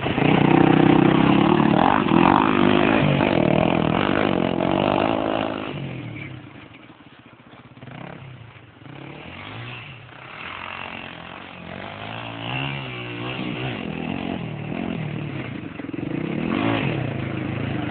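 Honda NX250 single-cylinder motorcycle engine revving hard close by, then fading away about six seconds in. It comes back with revs rising and falling, louder again near the end.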